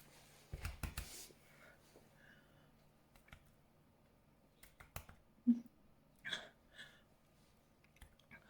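Faint mouth clicks, swallows and short breaths from a woman building up to a burp, with a brief low thump about half a second in.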